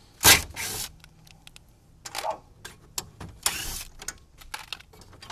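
A cordless drill-driver running in several short spurts as it backs screws out of a TV's plastic housing, with small clicks and knocks of the plastic parts between them.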